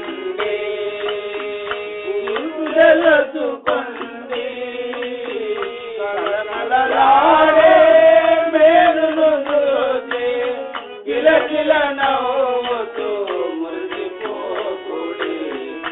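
Telugu devotional bhajan song: singing over tabla and a steady held accompaniment. The voice swells to its loudest stretch around the middle, then settles back.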